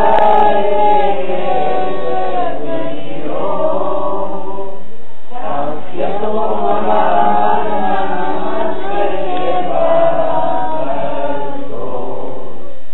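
A group of people singing a worship song of praise together, with a brief break about five seconds in.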